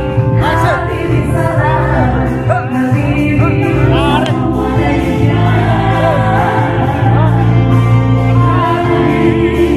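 A live gambus pop band playing loudly through the PA, with singing over keyboard, drums and bass.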